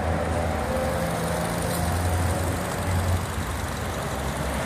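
Steady low hum of an idling car engine.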